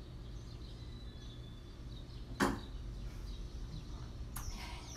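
Quiet room with a steady low hum, broken by one sharp knock about two and a half seconds in and a fainter knock near the end.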